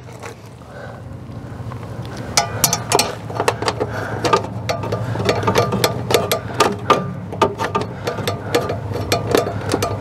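Screwdriver backing out the screws of a Suburban SW12DE RV water heater's heating-element cover: a run of quick, irregular metal clicks starting about two seconds in, over a low steady hum.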